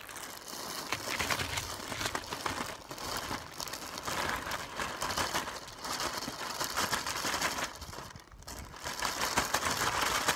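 Plastic bag of Senko soft-plastic stick worms crinkling and rustling as it is opened, tipped up and shaken out, the worms spilling onto a pile, with a short lull about eight seconds in.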